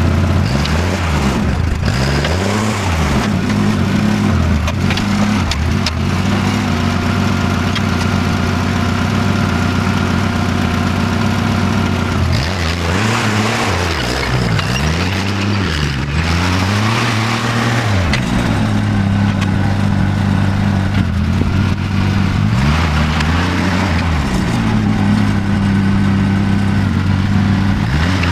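Tractor engine running at a steady speed while the machine works to lift a toppled backhoe attachment upright, with a few noisier stretches of clatter.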